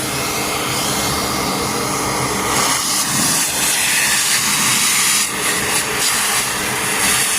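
Vacuum cleaner running steadily with a loud rush of air and a motor hum, cleaning debris out of a car's sunroof sunshade track. The rushing sound brightens about two and a half seconds in.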